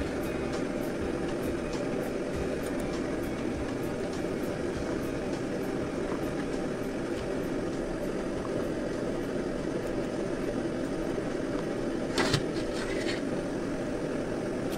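Steady roar of a stove burner heating the cooking pot. A short clatter about twelve seconds in, as vegetables drop into the aluminium pot.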